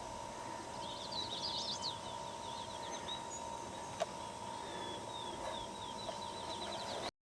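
Songbird singing outdoors: series of quick, high, sweeping notes repeated from about a second in, over a faint steady tone. A single sharp click about four seconds in, and the sound cuts off suddenly just before the end.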